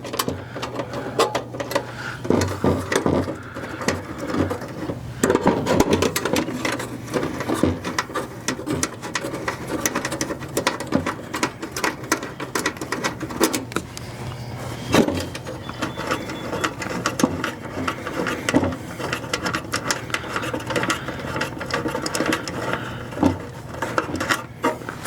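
Hand tools and screws clicking and rattling inside an Attwood RV furnace's metal housing as the blower motor's mounting screws are taken out, with a steady low hum underneath.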